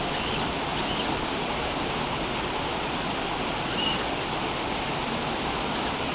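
Steady rush of water noise, with a few faint, short high chirps near the start and about four seconds in.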